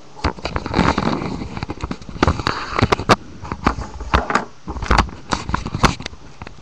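Handling noise from the camera being gripped and moved close to its microphone: a run of irregular clicks, knocks and rustles.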